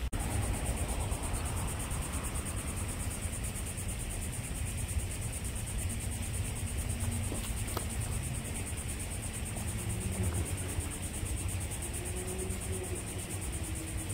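Insects trilling in a steady high-pitched chorus with a rapid, even pulse, over a low rumble.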